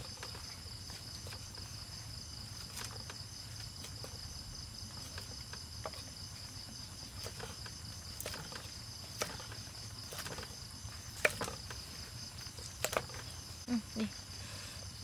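A kitchen knife cutting boiled cow's leg skin on a thick wooden chopping board, giving irregular sharp knocks roughly every second. Crickets chirr steadily in the background.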